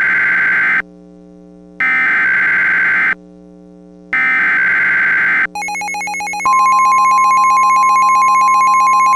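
Emergency Alert System SAME header: three screeching bursts of data tones, each about a second long with a second's gap between them. About six and a half seconds in, a loud steady alert tone begins, the weather radio's warning alarm that announces a new emergency message. A low steady drone runs underneath throughout.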